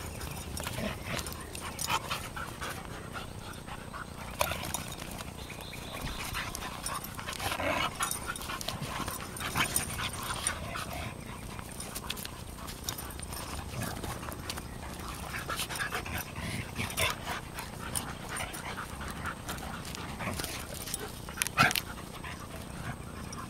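Two Siberian huskies and a golden retriever play-fighting at close range: irregular short dog vocal sounds and scuffling, with the loudest burst near the end.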